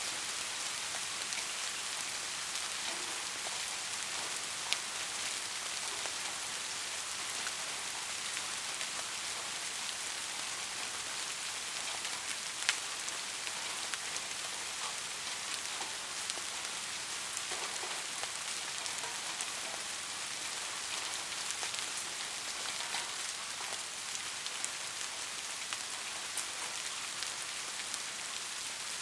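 Steady rain falling on a surface, a constant hiss with scattered sharper drop ticks, two of them standing out near 5 and 13 seconds in.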